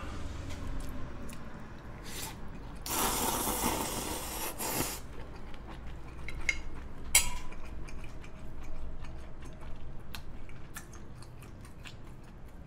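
A person slurping black bean sauce noodles in one long draw lasting about two seconds, starting about three seconds in, then chewing with wet mouth sounds and scattered sharp clicks.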